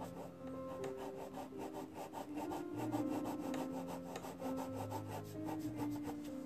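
Graphite pencil scratching on drawing paper in quick repeated shading strokes, over background music with held notes.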